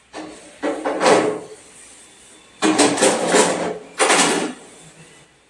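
Cloth wiping a kitchen counter and gas stovetop: several loud rubbing swishes with short pauses between them.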